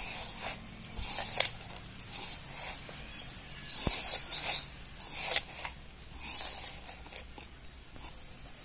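A hand mixes grated beetroot into dry roasted-gram flour and rice flour in a metal vessel, making rustling and scraping strokes, with a sharp scrape or knock about one and a half seconds in. About two seconds in, a bird calls a fast run of about a dozen high chirps, roughly five a second, lasting about two and a half seconds.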